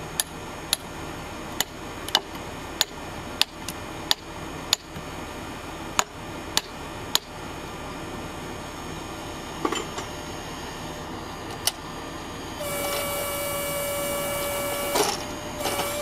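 A series of sharp metallic clicks, about one every half second to a second, for the first seven seconds, then a few scattered knocks. Near the end a steady mechanical whine starts and runs for about two seconds.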